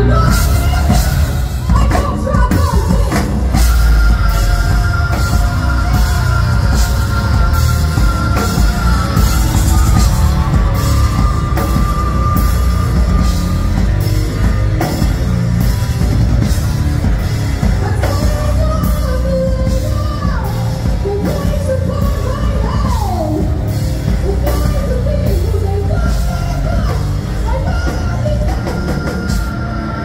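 Live rock band playing loud: drum kit, electric bass and electric guitars together, with long held notes, some of them sliding in pitch in the second half.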